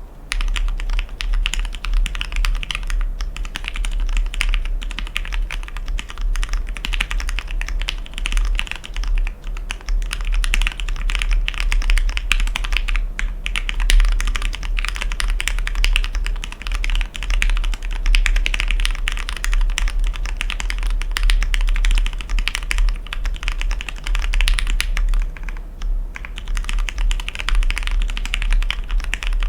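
Continuous typing on an Arisu (Alice-layout clone) mechanical keyboard with Krytox-lubed linear Gateron Black switches, Durock stabilizers, PBT keycaps and a matte black acrylic sandwich-mount case: a dense, steady stream of keystrokes, broken by short pauses about three, nine, thirteen and twenty-six seconds in.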